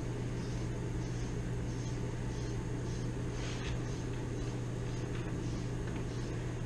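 A deshedding comb raking through a large dog's coat in short strokes, about two a second, heard softly over a steady low hum.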